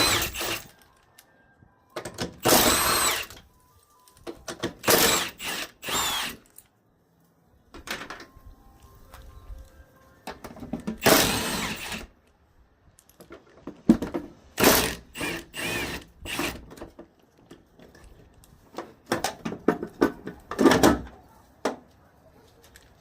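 A power tool run in short bursts, its motor whine rising and falling, loosening the bolts of a truck's upper door hinge. Shorter clicks and clunks fall between the bursts.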